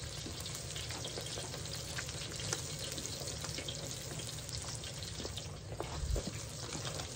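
Crappie fillets sizzling and crackling in hot oil in a disc-blade wok, a steady frying hiss with scattered pops over a low rumble. A dull bump about six seconds in.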